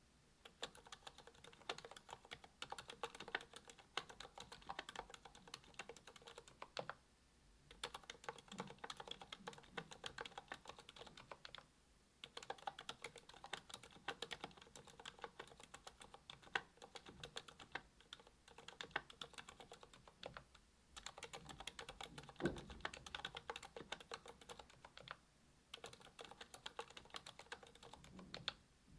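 Steady typing on a Monstargear Alu XO V2 aluminium-cased mechanical keyboard with ZealPC Healios V2 silent linear switches (67 g), a brass plate and GMK doubleshot ABS keycaps. The keystrokes are soft and damped, with brief pauses about 7, 12, 21 and 25 seconds in.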